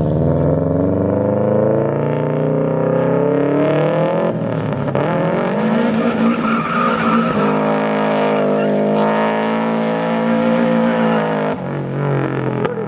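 Subaru WRX's turbocharged flat-four engine revving up and down hard while drifting, with tyres screeching from about five seconds in until the revs drop near the end.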